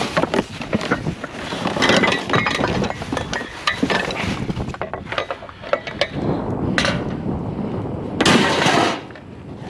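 Pots, pans and other kitchenware clinking and clattering as they are handled and rummaged through, with a louder scraping clatter near the end.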